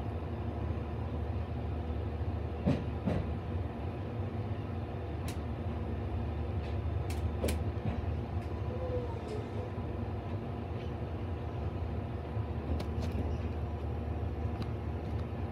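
Electric train running along the track, heard from inside the front car: a steady low rumble from the wheels and running gear, with occasional sharp clicks from the wheels on the rails.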